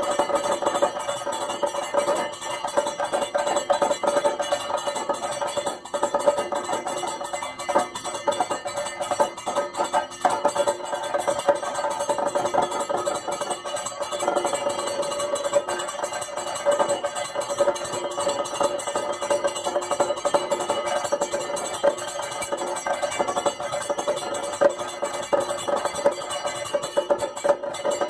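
Kathakali percussion accompaniment: a chenda drum beaten in a dense, steady rhythm, with a hand-held bell-metal gong clanging.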